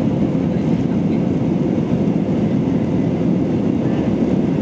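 Steady cabin noise of an Airbus A320-232 in flight: the deep, even rumble of its IAE V2500 engines and the airflow, heard inside the cabin from a window seat over the wing.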